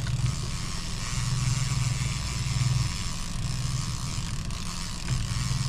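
Boat's outboard motor running steadily at low speed, a low even hum.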